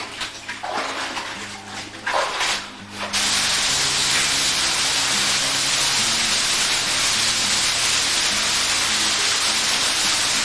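Water pouring down an underground waterfall pitch in a cave: a loud, even rushing hiss that cuts in suddenly about three seconds in and holds steady. Slow, held low music notes run underneath, and a few short rushes of noise come before the water.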